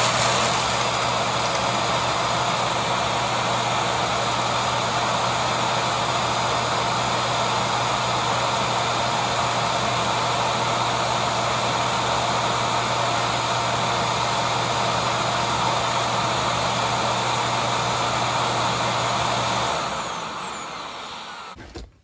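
Deebot T8+ self-empty station's suction motor running loud and steady as it sucks Nerds candy out of the robot's dustbin, then spinning down and stopping over the last two seconds.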